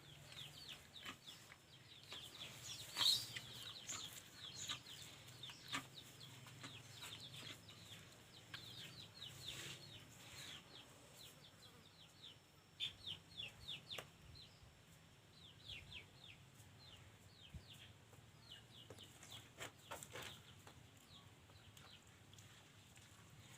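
Faint, high peeping of chickens: many short chirps that fall in pitch, coming in quick runs, with a few sharp clicks among them.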